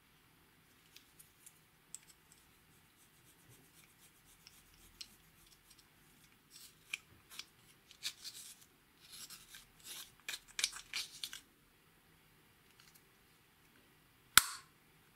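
Pressed eyeshadow being scraped and crumbled out of a metal compact with a small plastic tool, a run of dry scratching and crunching strokes in the middle. A few light handling ticks come before it, and there is one sharp click near the end.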